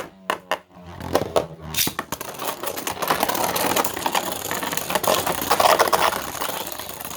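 Two Beyblade spinning tops, a 3D-printed one and a left-spin one, launched into a plastic stadium and battling: a few sharp clicks in the first second, then continuous rattling and scraping as the tops spin and collide with each other and the stadium floor.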